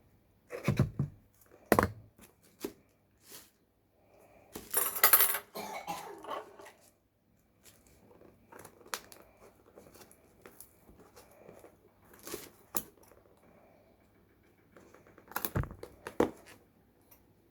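Small parts and packaging being handled on a table: scattered light clicks and knocks, a louder noisy stretch of about two seconds about five seconds in, and two sharper knocks near the end.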